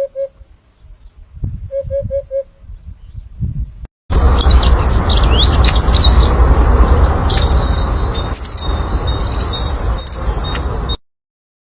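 Songbirds chirping and twittering loudly in quick high notes that sweep up and down in pitch, over a steady low rumble; the birdsong starts abruptly about four seconds in and cuts off suddenly near the end. Before it, two short runs of four quick low tones.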